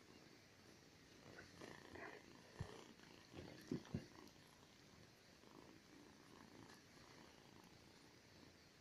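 Faint purring of a kitten being petted, with rustling of the quilt as the kittens play and a few short soft thumps around the middle, the loudest a pair about four seconds in.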